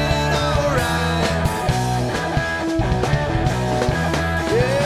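Raw rock band recording: electric guitar over a steady drum beat.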